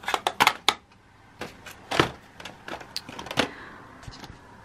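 Eyeshadow palettes clicking and knocking against each other as a hand leafs through them in a storage-trolley basket: a quick run of sharp clicks in the first second, another knock about two seconds in, and a few more around three and a half seconds.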